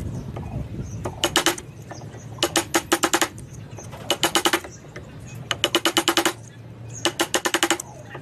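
Bursts of rapid, sharp, ringing taps, five to eight strikes in each quick cluster, recurring about every second and a half over a low steady hum.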